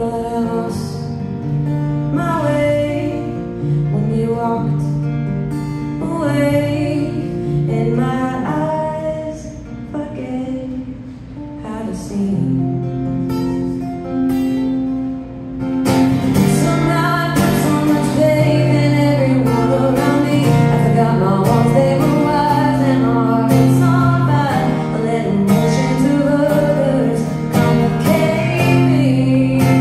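Acoustic guitar strummed live with a woman singing over it. The playing gets louder and fuller about sixteen seconds in.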